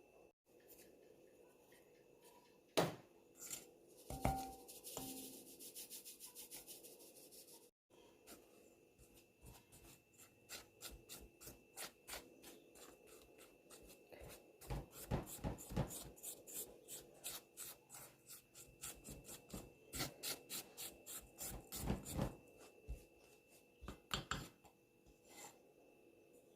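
Pastry-dough ingredients being stirred and mixed in a bowl: short rubbing, scraping strokes, about three to four a second, with a few sharper knocks near the start.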